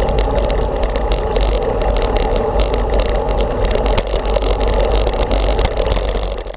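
Wind buffeting and road rumble picked up by a handlebar-mounted camera on a moving bicycle: a steady heavy rumble with frequent small knocks and rattles from the road surface. It cuts off suddenly at the very end.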